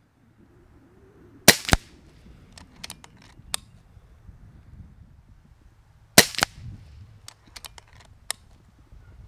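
Kral Puncher Breaker .22 PCP air rifle fired twice, about five seconds apart. Each shot is a sharp crack followed about a quarter second later by a second crack. Between the shots come lighter metallic clicks as the action is cycled to chamber the next pellet.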